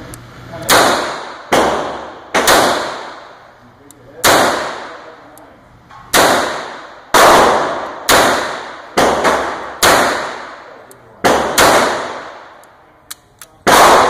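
Gunshots in an indoor shooting range, among them those of an 1895 Nagant revolver. About a dozen sharp cracks come at irregular intervals, each trailing off in a long echo.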